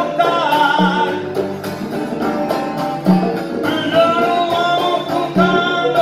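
Live acoustic song: a man singing over a strummed acoustic guitar, with congas and bongos keeping a steady beat.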